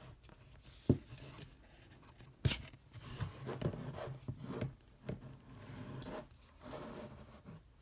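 Blu-ray disc being slid out of a cardboard slot in a disc book and handled: irregular rubbing and scraping of disc against cardboard, with two sharp knocks about one and two and a half seconds in.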